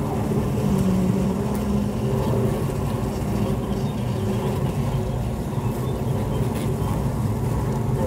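Honeybee colony humming inside the hive, a dense, steady buzz picked up close by a microphone placed among the combs.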